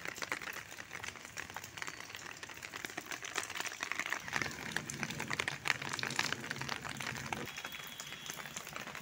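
Rain pattering and dripping onto a wet concrete floor and its puddles: many small, irregular taps. A low rumble joins for a few seconds in the middle.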